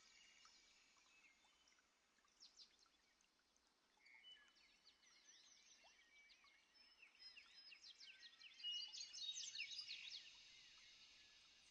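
Faint birdsong, many quick high chirps and trills. A few notes come early, the song grows busier about halfway through, and it is densest near the end.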